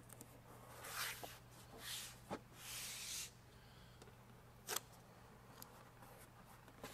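Rustling and crinkling of a large sheet of 3M 2080 vinyl wrap film on its paper backing as it is flipped over and pressed against a car door, in several short swells. Two sharp clicks are heard, one just past two seconds in and one near five seconds in.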